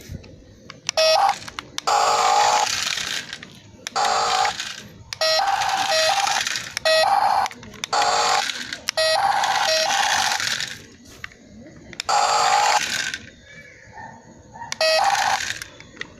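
Mini 1:43 RC truck's built-in electronic sound module playing short canned sound effects through its small speaker. Bursts of about a second, some with beeping tones, repeat every second or two with short gaps between.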